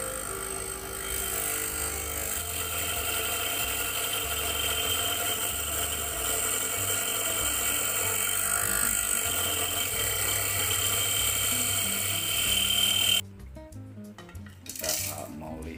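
Nankai 600N electric coffee grinder motor running with a steady high whine while its grind-adjustment dial is turned during calibration; it switches off abruptly about thirteen seconds in.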